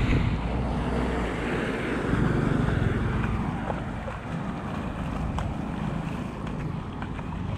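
Wind rumbling and buffeting on the microphone over a steady outdoor hiss, with a few faint clicks.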